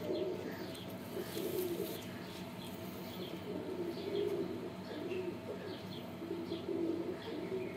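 Domestic pigeons cooing, low rounded coos repeating every second or so, with faint short high chirps scattered through.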